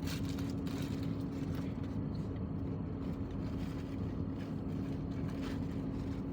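Steady low machine hum with one constant tone over a low rumble.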